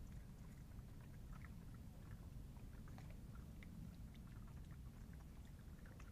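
Faint, scattered small clicks and rustles of two European badgers foraging and chewing in the grass, over a steady low rumble of background noise.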